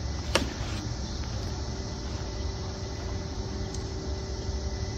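A single sharp pop about a third of a second in: a pitched baseball smacking into the catcher's mitt. A fainter click follows near the end, over a steady low outdoor rumble.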